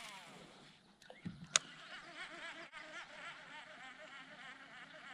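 Insects chirring steadily in a swamp, with one sharp click about a second and a half in.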